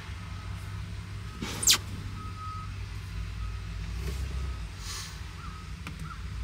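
Steady low machine rumble, with a few faint short high beeps and one brief loud swishing noise about one and a half seconds in.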